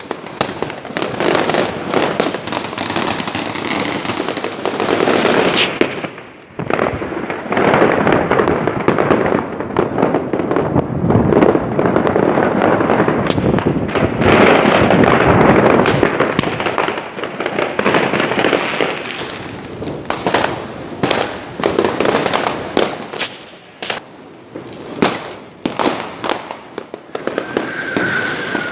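Fireworks going off in a dense, continuous barrage of bangs and crackling, thinning after about twenty seconds into separate sharp bangs.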